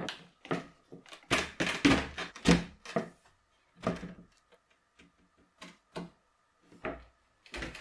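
Plywood chair parts knocking and thudding against each other as tenons are pushed into their mortises during assembly. There is a quick run of several loud knocks in the first few seconds, then single knocks spaced out a second or so apart.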